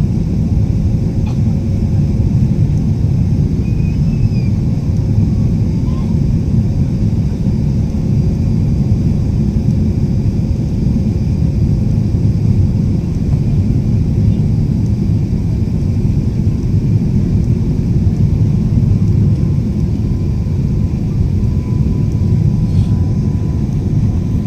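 Airliner cabin noise during landing: a steady, loud rumble of engines and airflow heard from inside the passenger cabin, with a few faint thin tones above it.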